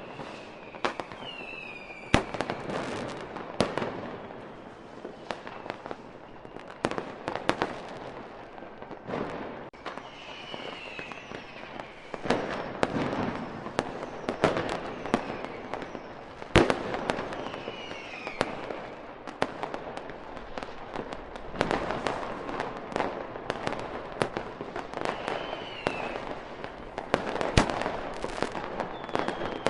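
Aerial fireworks going off in a continuous string of sharp bangs and crackling, with a few especially loud reports and several short high whistles among them.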